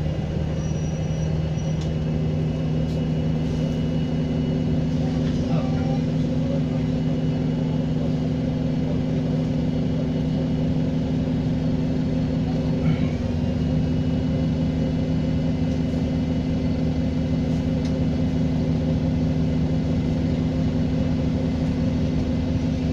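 Diesel bus engine running steadily, with a thin high-pitched turbocharger whistle held above the engine note.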